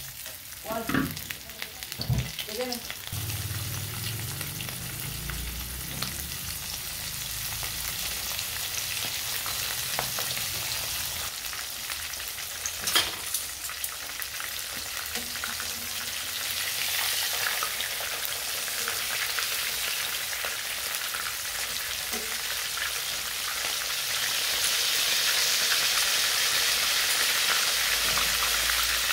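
Breaded whole mojarras frying in hot oil in a nonstick pan: a steady sizzle, with a few knocks in the first seconds and a single sharp click about halfway. The sizzle grows louder for the last few seconds.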